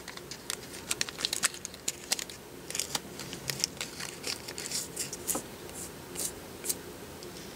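Garbage Pail Kids trading cards being slid and flipped through by hand, one after another: irregular short clicks and brief papery swishes.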